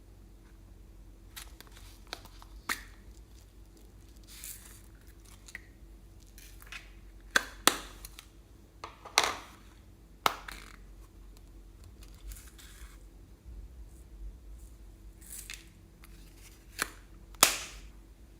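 Close-up handling of slime and its add-ins: a run of sharp, irregular pops and clicks, about a dozen, with softer crackling and rustling between them.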